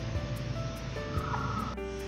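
Background music with held melody notes over a steady beat.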